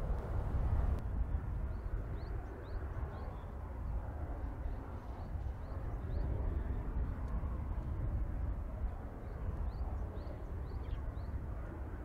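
Strong wind rumbling over the microphone. A distant twin-engine turboprop fades out in the first second, and after that a bird gives a string of short, high, rising chirps, a few each second.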